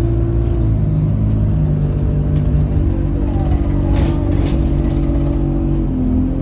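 Alexander Dennis Enviro200 bus's diesel engine running under way, heard from on board, with a high turbo whistle that holds steady and then falls away about two to three seconds in. The engine note shifts in steps, and there is a short burst of noise about four seconds in.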